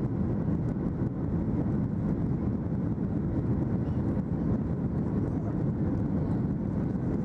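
Steady cabin noise of a Boeing 737-800 climbing out after takeoff, heard from inside the cabin at a window seat over the wing: the CFM56-7B engines and the rush of air as a deep, even rumble.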